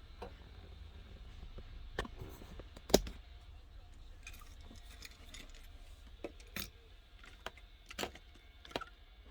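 Scattered sharp clicks and light clatter of things being handled, the loudest a single knock about three seconds in, over a low steady hum.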